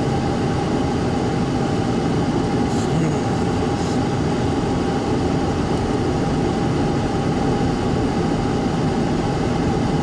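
Steady cabin noise of a moving car, heard from inside: engine and tyres on the road blending into an even rumble at a constant level.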